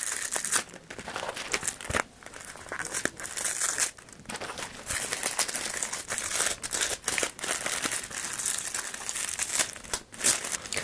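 Paper packaging of a perfume sample set rustling and crinkling as it is unfolded and handled, in irregular crackles.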